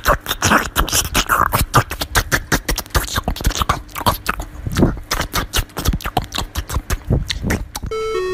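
A puppy chewing watermelon close to the microphone: rapid, irregular wet crunching and smacking of the juicy flesh. About 8 seconds in the chewing stops and music with a keyboard melody starts.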